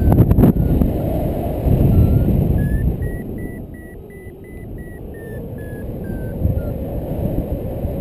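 A paragliding variometer beeping in short, evenly spaced tones whose pitch climbs to a peak around the middle and then steps back down, the audio signal of the glider climbing in lift. Wind rushing over the microphone runs underneath, strongest in the first two seconds.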